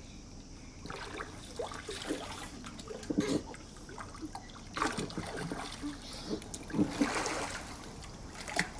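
Water splashing and sloshing in a shallow inflatable paddling pool as a small child moves about in it, with irregular splashes.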